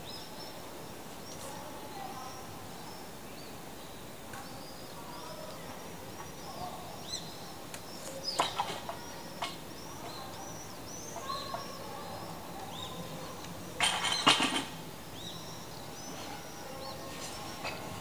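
Small birds chirping repeatedly over steady outdoor background noise, with two louder, brief rattling bursts, one about eight seconds in and a longer one near fourteen seconds.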